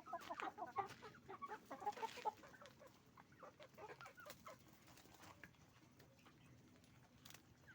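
A flock of hens clucking, many short overlapping clucks at first, thinning out and getting quieter after about two and a half seconds.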